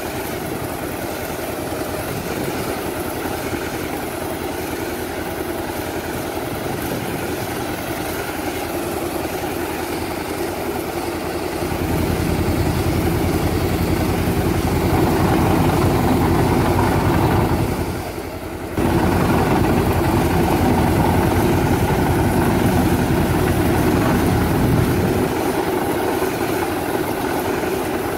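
Engine of a tractor-powered orchard sprayer running steadily while it works, driving the sprayer's pump as the nozzles throw mist. Partway through, the sound grows louder and heavier for a stretch, with a brief dip in the middle of it.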